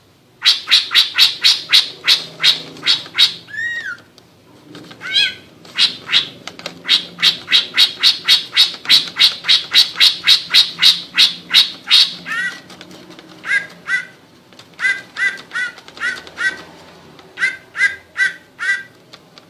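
Greater green leafbird (cucak ijo) calling in 'ngekek' style. Long rapid strings of loud, sharp, repeated notes come at about four a second, broken once by a single downslurred note. Past the middle, these give way to short groups of paired, lower notes.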